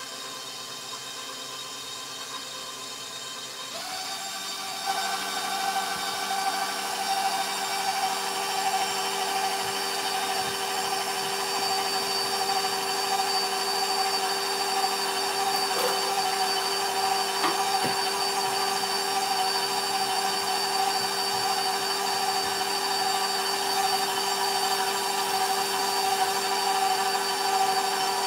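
Electric stand mixer running, its beater creaming butter and powdered sugar in a stainless steel bowl. The motor grows louder and steps up about four seconds in, then runs steadily.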